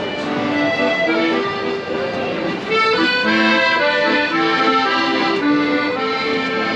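Accordion played by a strolling street musician: a melody over held chords, growing louder about three seconds in.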